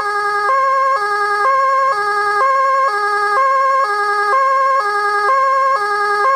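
118K 200 W electronic siren playing a two-tone hi-lo pattern through its siren speaker, switching between a higher and a lower tone about every half second.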